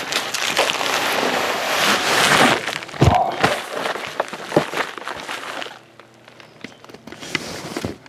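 Packaging rustling and crinkling as a new BMW engine cover is pulled out of it, with a sharp knock about three seconds in and scattered handling clicks after, going quieter near the end.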